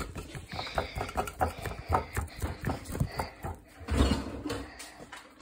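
Irregular light taps and clicks, a few a second, with a heavier knock about four seconds in.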